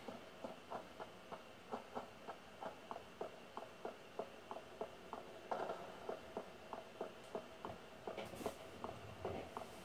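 Game footsteps of an armoured character running over stone, a regular patter of about three steps a second, played through a laptop's speakers, with a steady faint hum underneath.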